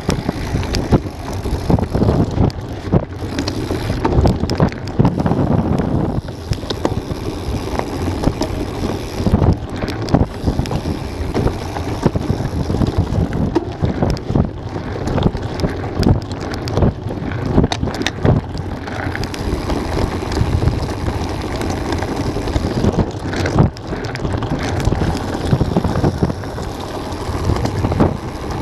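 Mountain bike riding down a rocky, gravelly trail, heard from a camera on the bike or rider: a steady rush of wind on the microphone with tyres on loose stones and frequent knocks and rattles from the bike over the bumps.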